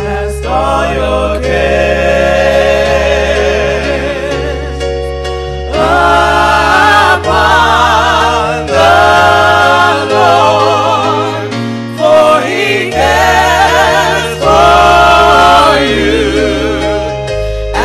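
Gospel music: voices sing long, wavering notes with vibrato in short phrases over steady held low notes.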